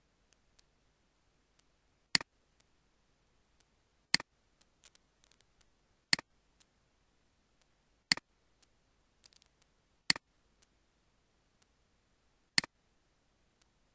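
Computer mouse button clicks, six sharp ones about two seconds apart, each followed closely by a softer second click, with a few fainter clicks and taps in between.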